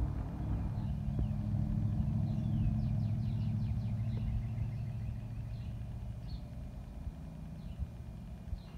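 A motor vehicle's low engine rumble that swells about two to three seconds in, then slowly fades. Birds chirp short calls over it.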